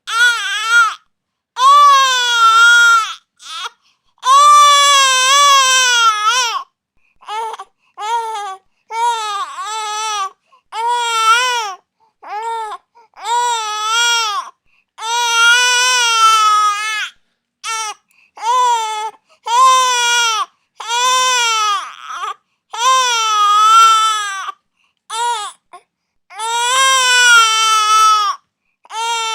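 Infant crying hard: a long series of high-pitched wails, each a fraction of a second to a couple of seconds long, with brief catches of breath between them and the pitch wavering up and down.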